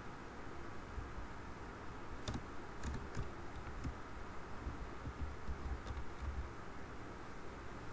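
A few scattered computer keyboard keystrokes, sharp single clicks a second or more apart, over a steady low background hum.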